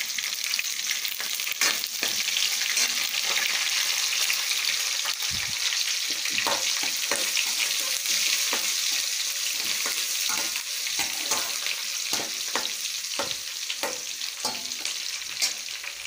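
Sliced onion and crushed garlic sizzling steadily in hot oil in a stainless steel kadai as the onion softens. A steel spatula stirs them, tapping and scraping against the pan now and then, more often in the second half.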